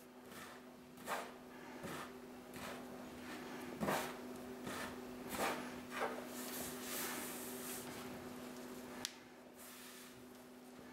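Hands squashing cold butter and egg yolk into flour on a wooden worktop to start a shortcrust dough: soft rubbing and pressing with several dull knocks of hands on the wood, and a sharp click just after nine seconds. A steady hum runs underneath.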